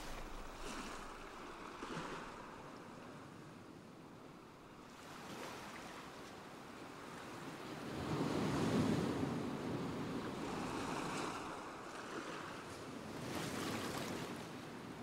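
Rushing noise of wind and flowing river water that swells and fades, loudest about eight seconds in.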